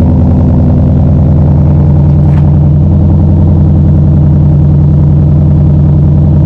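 Ford Mustang GT's 5.0 V8 idling steadily just after a cold start through an MBRP Race catback exhaust, a deep, even exhaust note that is still pretty tame.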